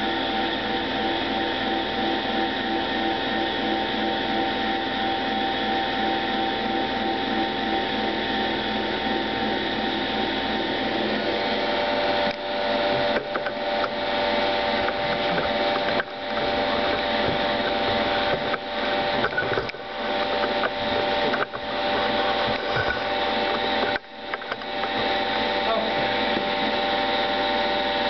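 Baldwin hydraulic compression testing machine warming up: its pump and motor run with a loud, steady hum of several tones. The hum dips briefly a few times in the second half.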